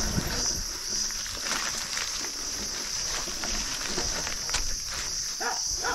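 A steady, high-pitched insect drone in the woods, over the rustle and irregular bumps of mountain-bike tyres rolling downhill across grass and dry leaf litter.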